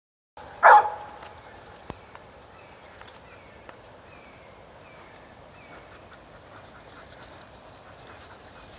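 One loud, short animal call about half a second in. It is followed by about six short, falling, high chirps from a small bird, evenly spaced, over a low background hiss.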